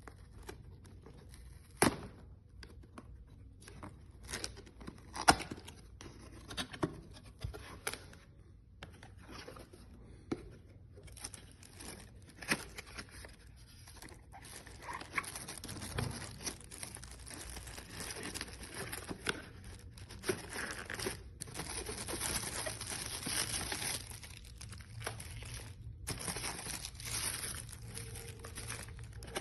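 Rustling, crinkling and tearing of packaging being handled, with scattered sharp clicks and knocks. It grows busier and louder in the second half.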